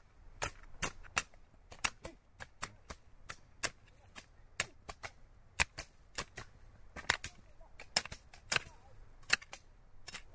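A run of sharp, irregular clicks or knocks, about three a second, over faint background noise.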